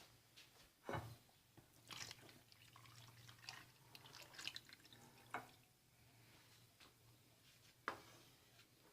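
Faint kitchen handling of a cooking pot of karhi: a few soft knocks of a utensil against the pot and small clicks with light liquid sounds, over a low steady hum.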